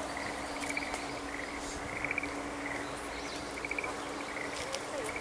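Rural outdoor ambience: short, rapid trilled chirps from a small bird or insect repeat every second or so over a steady low hum.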